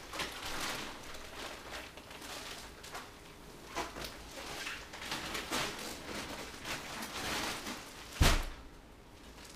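Clear plastic wrapping on a vacuum-packed Tuft and Needle foam mattress crinkling and rustling as the rolled mattress is lifted and unfolded. About eight seconds in, a single heavy thump as the mattress flops down flat.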